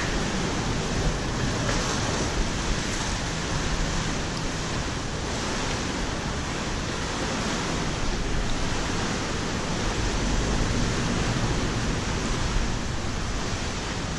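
Steady rushing of moving water, an even wash of noise that carries on without a break.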